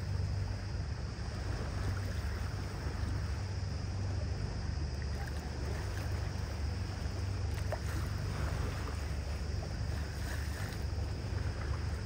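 Tour boat under way: a steady low engine drone mixed with wind and the rush of water along the hull.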